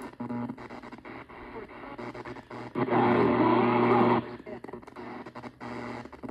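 AM band of a cheap clear cassette player's radio being tuned, heard through an external speaker: hiss and crackle with clicking interference. About three seconds in, a station comes through loudly for about a second and a half over a steady hum, then drops back to static. Reception is poor.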